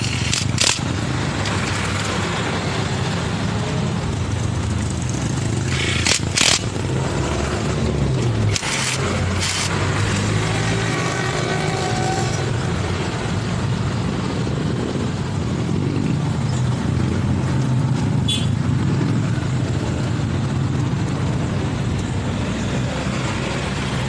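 Yamaha Fino scooter engine running steadily after its CVT-side bearing replacement, with a few sharp clicks, two close together about six seconds in.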